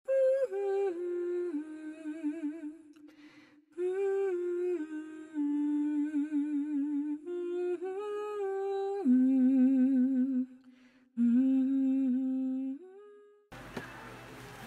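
A solo voice humming a slow melody without words, in four phrases of held notes with vibrato. It stops about 13.5 seconds in, giving way to a steady hiss.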